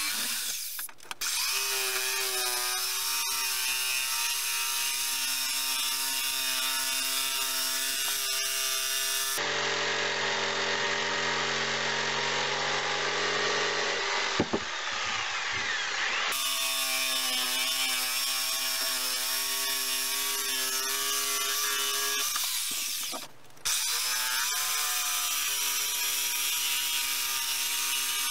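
Black Spur corded jigsaw cutting a curve through a wooden board, its motor whining steadily as the blade saws. The saw stops briefly twice, and its pitch climbs as it spins back up. There is one sharp click about halfway through.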